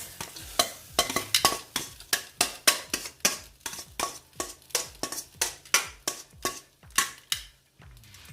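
Rapid, regular clinking of a kitchen utensil against cookware, about three clinks a second, each with a short ring; it stops shortly before the end.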